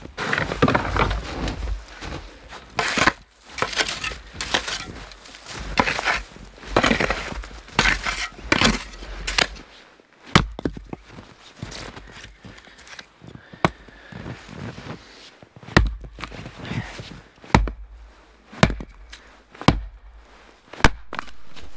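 Footsteps crunching through deep powder snow, then an axe splitting birch rounds on a chopping block. The axe makes a series of sharp cracks, one every second or two, and they come faster near the end.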